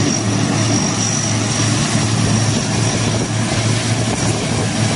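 A large vehicle's engine running steadily: a constant low hum under a heavy, even rush of noise.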